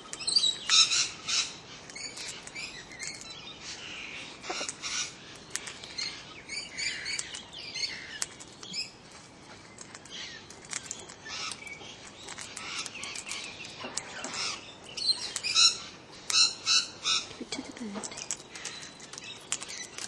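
Male Australian king parrot eating at close range: a run of short, sharp beak clicks and crunches that come in clusters, busiest about a second in and again near the end.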